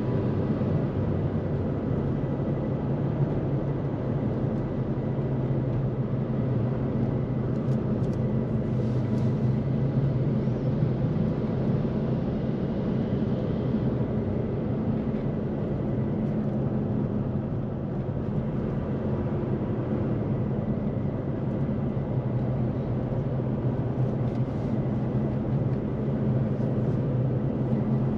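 Steady vehicle running noise: a constant low engine-and-road hum that holds even throughout, with no speech or music.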